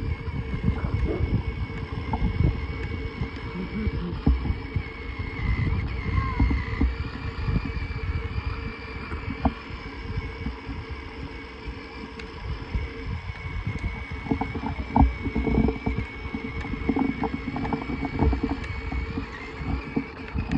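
Battery-powered ride-on toy motorcycle driving along a concrete sidewalk: a steady high electric-motor whine over the uneven low rumble of its plastic wheels.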